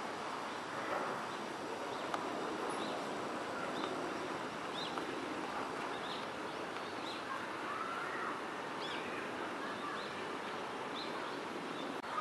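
Outdoor ambience: a steady background of noise with a small bird chirping short, high notes about once a second.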